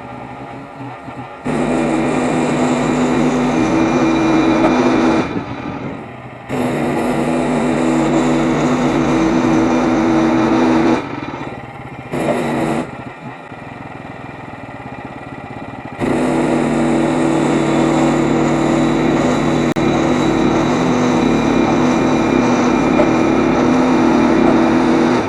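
Small gasoline engine of a Frontier OS23 portable bandsaw mill running steadily at high speed as the band saw cuts through a pine log. The sound drops abruptly to a quieter level three times, around the middle, then runs steadily again.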